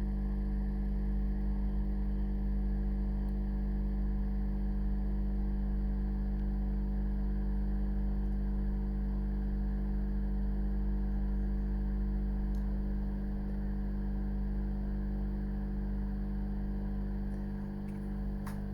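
Steady electrical hum made of several unchanging tones, with a few faint clicks near the end.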